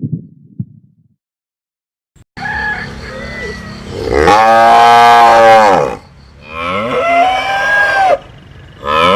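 Cattle mooing: a series of long calls starting about two seconds in, the loudest and longest in the middle, followed by two more moos.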